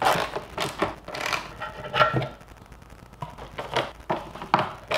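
Irregular plastic clicks and knocks from handling an S197 Mustang's plastic grille while the T25 Torx screws holding the fog-light housings are unscrewed, some knocks ringing briefly.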